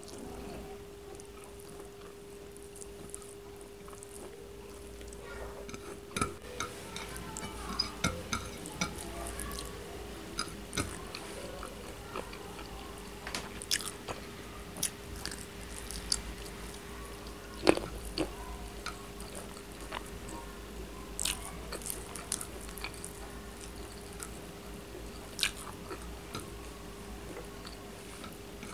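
Close-up eating of chicken curry and rice by hand: chewing and biting with many scattered sharp clicks and taps, over a faint steady hum.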